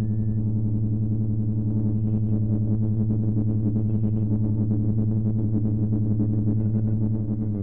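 ASM Hydrasynth digital wavetable synthesizer playing a held, steady low chord from a factory preset.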